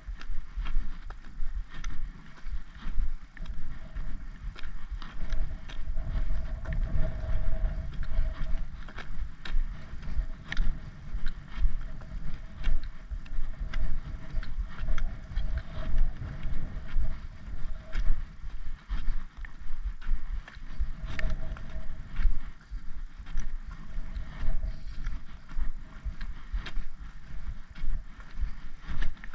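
Wind rumbling on a handheld camera's microphone, with the knocks and crunches of footsteps and camera handling during a walk along a tarmac lane. A faint steady tone runs underneath.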